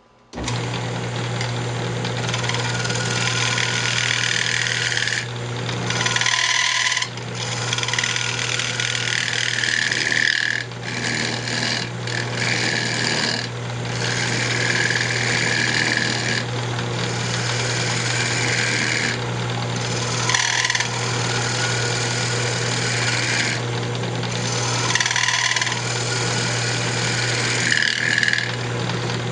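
Wood lathe running with a turning tool cutting a square cherry blank: a steady motor hum under a coarse cutting hiss that stops and starts again every few seconds as the tool is taken off and brought back to the wood.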